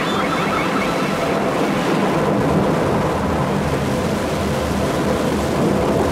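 Electronic music from a vinyl record: a dense, steady wash of noise over a low rumble.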